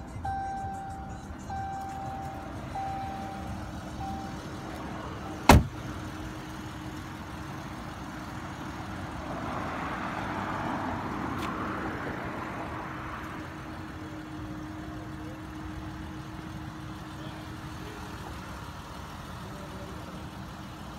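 Chrysler 300 dashboard warning chime beeping repeatedly, a little more than once a second, the alert that the key fob has left the vehicle. It stops after about four seconds, and a car door slams shut a second later. A steady low hum follows.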